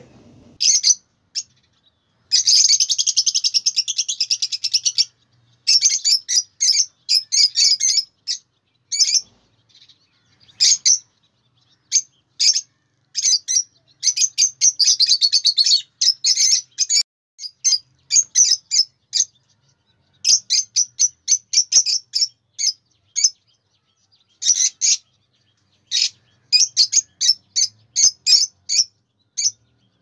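Caged Fischer's lovebirds chirping and chattering: shrill, high calls, sometimes packed into runs of rapid chatter two to three seconds long, sometimes single chirps, with short pauses between.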